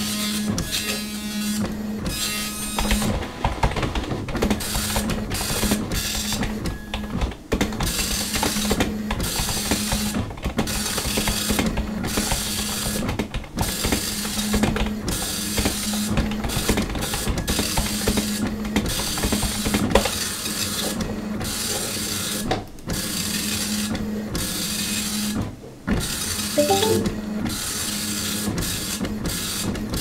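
Dot-matrix printer printing: the print head rasps across the page in runs of a second or two, broken by short pauses, over a steady low hum.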